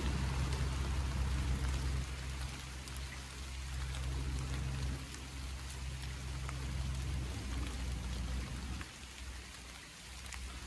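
Steady rain falling, with single drops ticking on surfaces over an even hiss and a low rumble underneath that eases off near the end.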